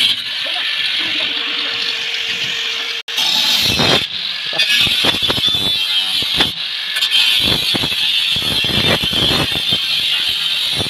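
Angle grinder cutting a metal tile-profile roofing sheet: a steady high whine with repeated harsher, louder stretches as the disc bites into the metal. The sound cuts out for an instant about three seconds in.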